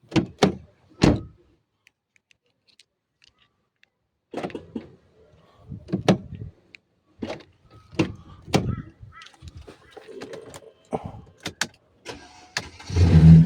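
Mercedes-Benz E350 (W212) central locking clunking as a newly made key and remote are tried on the doors: a quick series of sharp clicks and knocks, a pause, then more irregular clicks. Near the end a loud low rumble starts and keeps going.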